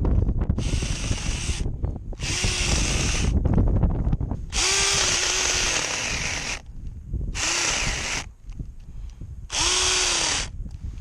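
Drill Pro cordless mini chainsaw's electric motor running in five short bursts, each spinning up, sagging in pitch and cutting out, the last ones shorter: the owner thinks the battery is dying.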